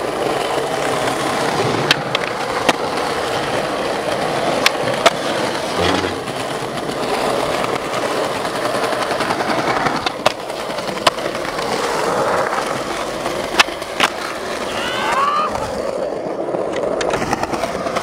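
Skateboard wheels rolling over paving stones with a steady rumble, broken by several sharp wooden clacks of the board hitting the ground.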